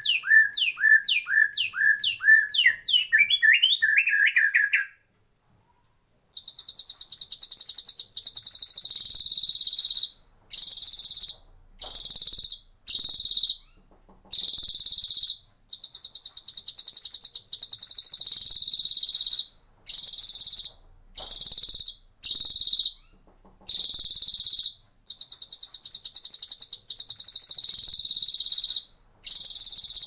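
White-rumped shama singing: first a rapid run of rising whistled notes, about two a second, then, after a second's break, long harsh buzzy high trills alternating with short buzzy phrases, each phrase dropping in pitch at its end.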